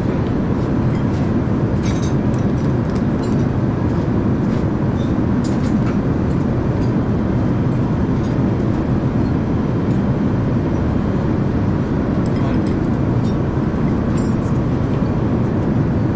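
Steady in-flight cabin roar of an Airbus A380, with a few light clinks of glass and metal bar tongs as a drink is mixed.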